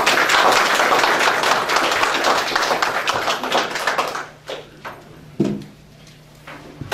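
A roomful of people applauding, dying away about four seconds in to a few scattered claps.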